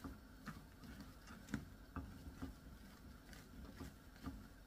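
Faint, soft taps and scrapes of a spatula against a stainless steel saucepan while marshmallows are stirred into melting butter and brown sugar, about two a second.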